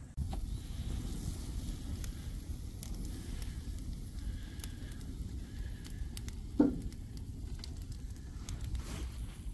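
Brushwood fire burning and crackling as fuel is poured onto it from a can, with a steady low rush of flame and scattered pops. One short, sharp sound, falling in pitch, stands out about two-thirds of the way in.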